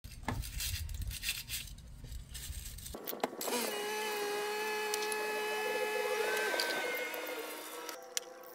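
Aerosol spray can with a straw nozzle spraying one long continuous burst from a few seconds in until near the end: a steady hiss with a whistling tone that rises about halfway through and then slowly sinks. Before it comes a few seconds of rumbly handling noise with light clicks.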